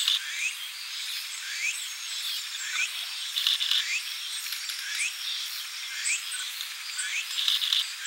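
Small birds bathing in a shallow rock pool, with brief bursts of wing-splashing, over a short rising whistle repeated about once a second.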